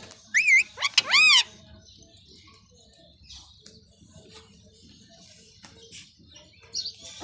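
Rose-ringed parakeet giving two loud whistled calls about half a second to a second and a half in: a short warbling whistle, then a longer one that rises and falls.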